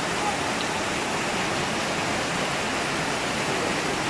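Muddy floodwater rushing through a street in a steady, unbroken roar of water.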